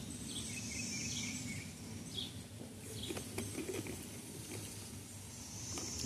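Outdoor ambience: a steady hiss with a few faint, short bird chirps and insect sounds.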